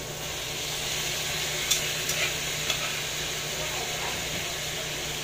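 A spatula scraping boiled taro leaves out of a saucepan into a cooking pot, with a few sharp taps of the spatula on the pan around the middle, over a steady sizzling hiss from the pot on the stove.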